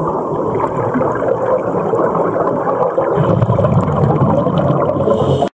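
Muffled underwater noise picked up by a diver's camera: a steady dull rushing, with a deeper rumble growing louder about three seconds in, cutting off abruptly near the end.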